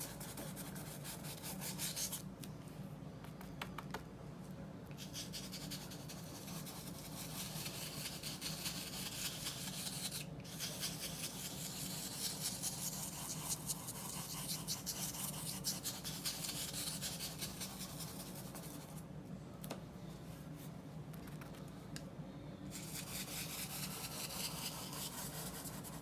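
Fan brush bristles scratching and rubbing thick white oil paint onto paper in quick repeated strokes while making clouds, with a few short pauses.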